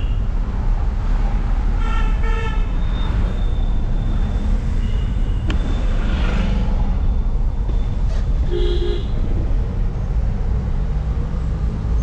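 Tata Safari Storme's diesel engine and road noise, a steady low rumble while driving. Short car-horn toots sound about two seconds in and again near nine seconds.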